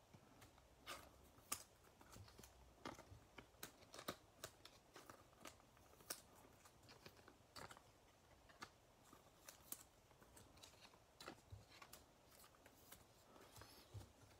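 Faint, irregular clicks and rustles of trading cards being handled, slid and set down on a table.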